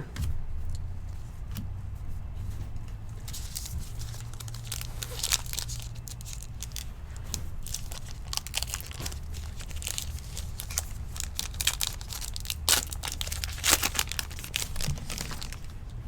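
Foil trading-card pack wrapper being torn open and crinkled, with irregular crackles that come thickest in two spells.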